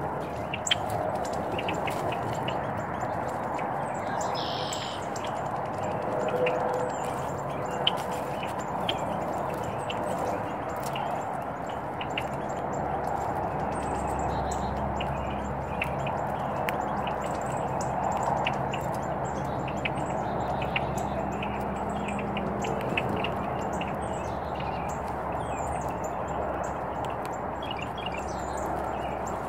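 Small birds chirping now and then over a steady outdoor background hiss, with many small sharp clicks scattered throughout. A low hum comes in about halfway through.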